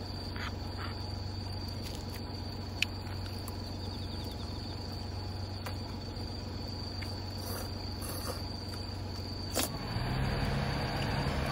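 Crickets chirring steadily at one high pitch, with a few light clicks of a spoon against bowls.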